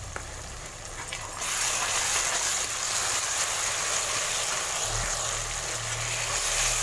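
Onion-tomato masala with ginger-garlic paste sizzling in a hot kadai as it is stirred with a steel spoon. The sizzle rises to a steady hiss about a second and a half in, after a few light spoon taps on the pan. A low hum joins about five seconds in.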